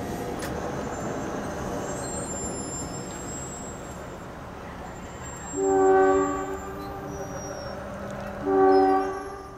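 Two short blasts of a train horn, each under a second long, a little after halfway and near the end, sounding a chord of steady tones. Before them the rumble of a passing train fades away.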